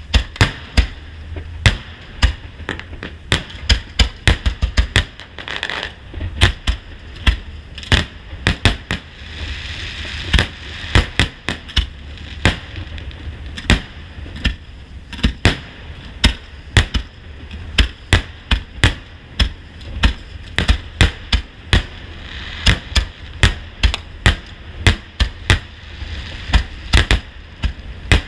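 Fireworks display: a continuous, irregular barrage of aerial shell bursts, several sharp bangs a second.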